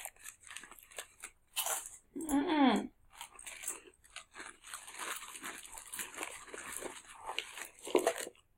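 Plastic snack wrapper crinkling and crackling in irregular bursts as it is handled and opened. About two seconds in, a short pitched, wavering vocal sound like a whine stands out as the loudest moment.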